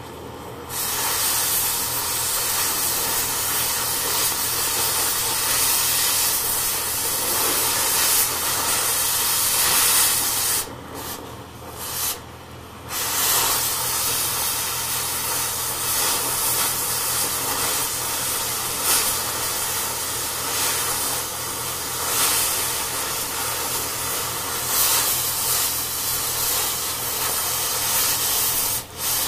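Oxy-fuel cutting torch hissing steadily as it burns through thick steel, the cutting jet breaking off briefly twice: just at the start and again about eleven seconds in for a couple of seconds.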